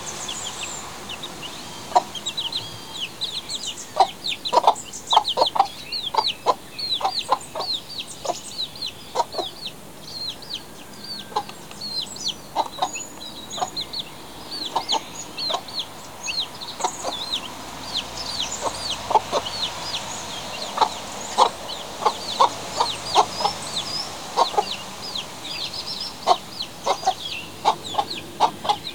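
Chickens in a coop: chicks peep continuously in high, falling notes, while a hen clucks in short, quick runs.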